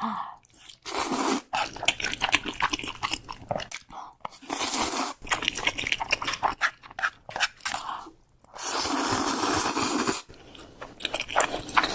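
Close-miked eating: crunchy bites and chewing, in repeated bursts of crackling crunches.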